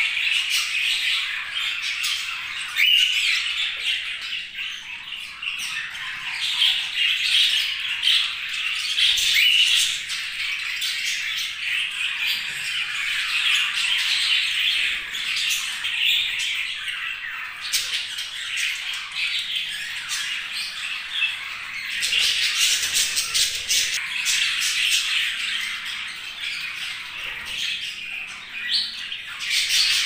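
A colony of budgerigars chattering and warbling together without pause, many small calls overlapping. About two-thirds of the way through there is a stretch of sharper, clicking chatter.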